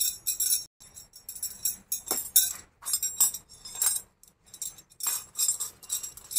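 Loose metal plumbing hardware clinking and jingling in short, repeated bursts as the pieces are handled.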